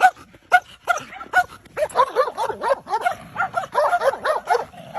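A dog giving a long string of short, high-pitched yips, a few spaced out at first, then coming faster and closer together from about two seconds in.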